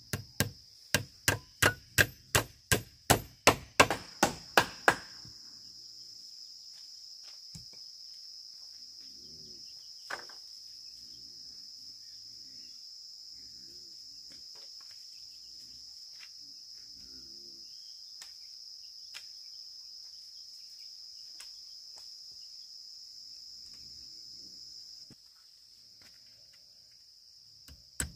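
About fifteen quick strikes of a hand tool on bamboo, about three a second, then a single knock a few seconds later. Under them, a steady high drone of insects runs until near the end.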